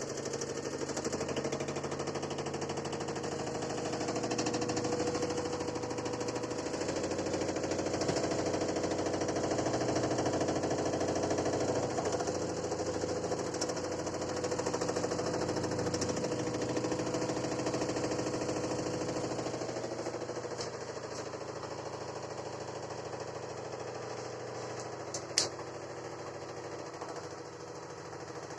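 LG F80B8LD6 direct-drive washing machine spinning, with a fast rattling knock over its hum that eases off after about twenty seconds. The owner likens the knock to a hose or wire striking the inside of the cabinet, with the drain hose visibly vibrating. There is one sharp click near the end.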